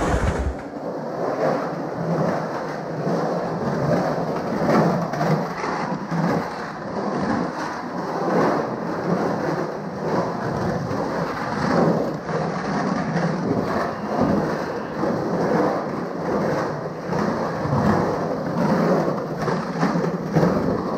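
Skateboard wheels rolling and carving across a concrete bowl, a continuous rolling noise that rises and falls as the riders pump through the transitions.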